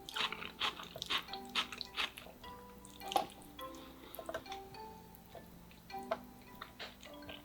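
Crisp crunching and chewing close to the microphone, dense for the first couple of seconds and then sparser, over soft background music of short held notes.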